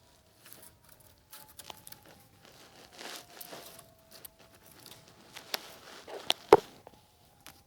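Homemade slime being squeezed and stretched by hand: soft, wet crackling and clicking, with a few sharper pops a little past two-thirds through, the loudest of them then.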